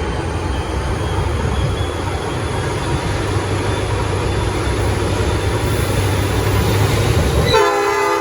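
VL class diesel locomotives working under power with a steady low rumble as they pull away, then near the end a Nathan P5 five-chime air horn starts sounding its chord.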